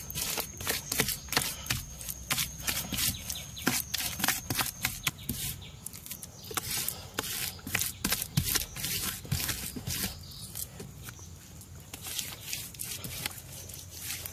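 A bare hand patting and smearing wet mud plaster: an irregular run of soft wet slaps and rubbing strokes, several a second.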